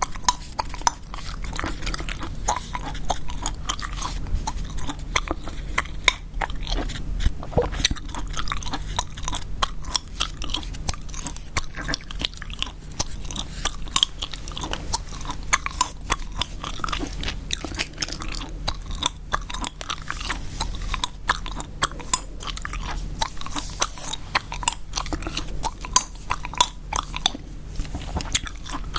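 Gum chewed close to the microphone, a dense, unbroken run of sharp, wet clicks and snaps.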